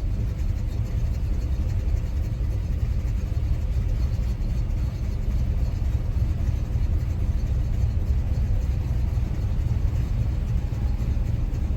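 1986 Chevrolet C10 pickup engine idling rough on a cold start: a steady low rumble whose loudness wavers a little.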